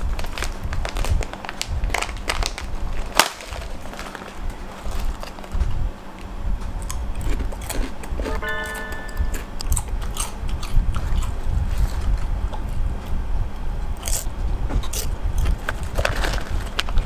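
A plastic snack bag of crisps crinkling and being handled, with sharp crackles and crunches of the chips being eaten, over a steady low rumble.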